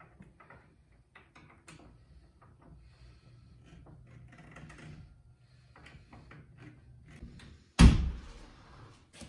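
Small clicks and knocks of door hardware being handled and worked with a screwdriver, then the door pushed shut with one loud bang near the end.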